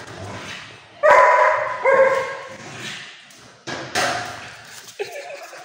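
A dog barking: two loud, pitched barks about a second apart, then two quieter ones near the end.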